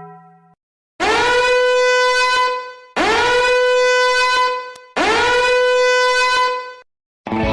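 Three identical horn blasts, each about two seconds long, bending up in pitch at the start and then holding one steady, brassy note, with short gaps between them.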